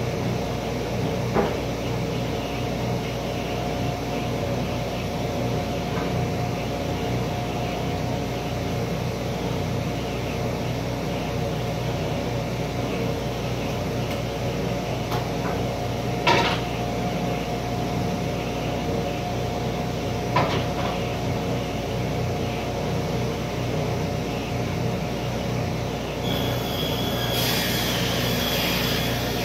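Table saw running steadily with a constant motor hum, with a few sharp knocks of boards being handled. Near the end a high hiss joins the hum, as the blade cuts into a board.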